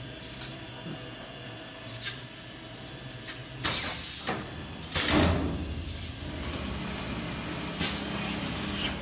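JBJ-7 quilt and pillow rolling machine running as a quilt is drawn in and rolled: a steady low motor hum, broken by several short, loud rushes of noise, the loudest about five seconds in.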